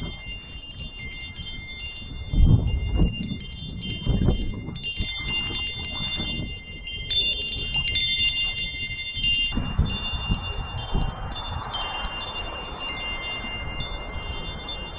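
Metal wind chimes ringing, several high tones overlapping and sustaining.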